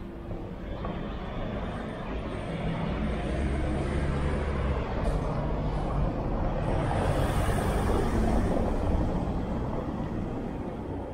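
A motor vehicle driving past: engine hum and tyre noise swell to a peak about eight seconds in, then fade away.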